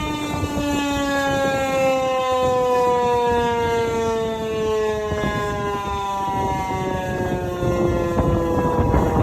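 Siemens-Halske FM Si 28 eight-port motor siren winding down, its chord of tones falling slowly in pitch over a rough grinding rattle that grows near the end. The uploader puts the rattling and grinding down to a damaged bearing.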